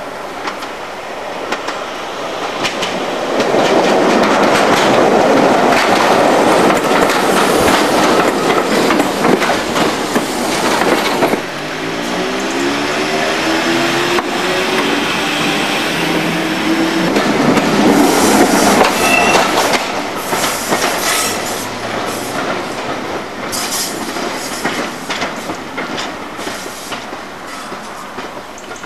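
British Rail Class 504 electric multiple unit running in, its wheels clattering on the rails. After a break, a rising whine from a unit's traction motors as it pulls away and gathers speed, then more wheel noise with a brief squeal and clicks over the rail joints.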